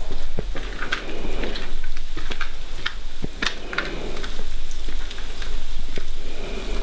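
Footsteps crunching and scuffing over a gritty, debris-strewn floor, with scattered irregular crackles and ticks.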